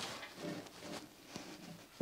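Faint, scattered metal clinks and taps from hands working on a milling machine's knee lifting screw, a few with a short ring.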